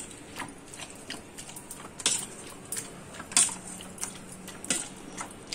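Metal hand masher pressed through cooked colocasia leaves in a stainless steel pot, knocking and clicking against the pot's bottom and sides in an irregular run, with a few louder strikes.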